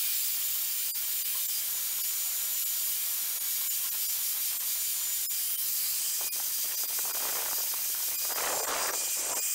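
Milwaukee angle grinder with a diamond blade running at speed, grinding the curved edge of a tile to shape a round hole: a steady high hiss and whine, with rougher scraping bursts in the last few seconds as the blade bites harder.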